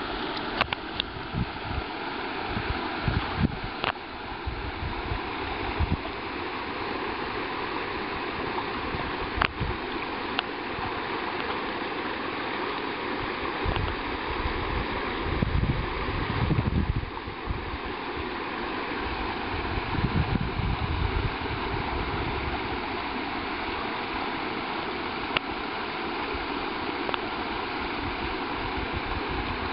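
Creek water running steadily over rocks, with a few low rumbles now and then.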